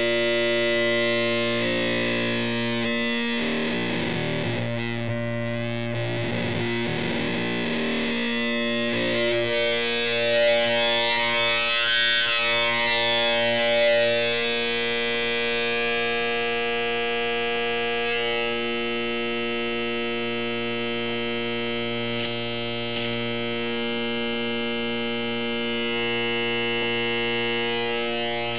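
Buzzy square-like wave from a DIY 4093-based VCO holding one steady note through a simple TL071 op-amp voltage-controlled filter. The filter cutoff and resonance are turned by hand, so the tone's brightness shifts back and forth in the first half and then settles.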